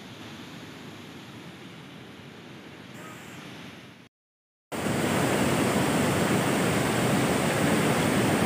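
Steady rushing noise of heavy rain and the swollen, fast-flowing river below the suspension bridge. About four seconds in it cuts out for half a second and comes back much louder.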